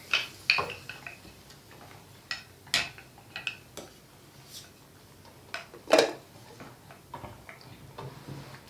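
A ladle and spoons clinking against a steel cooking pot and bowls as soup is served and eaten: irregular sharp clinks and knocks, a few of them louder.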